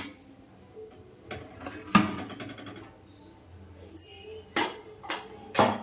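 Cooking vessels knocking on an aluminium pot lid as the weighted bowl is lifted off the lid. There is a sharp clank about two seconds in and a few more knocks near the end.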